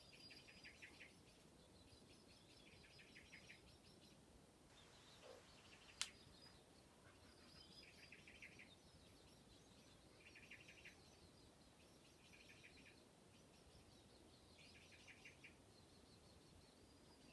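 Faint, short chirping trills, each a quick run of pulses, repeating about every two seconds, with a single sharp click about six seconds in.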